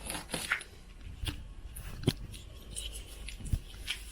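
Scattered light clicks and knocks from handling a cardboard delivery box and its packaging, with one sharper click about two seconds in.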